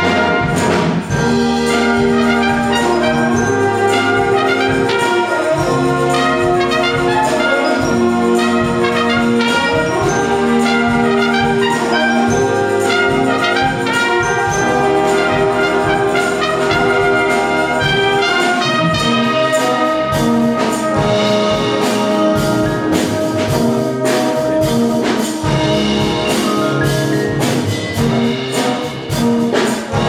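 Batterie-fanfare brass band playing a concert piece: bugles, trumpets and low brass in held chords and moving lines, with struck percussion joining in about two-thirds of the way through.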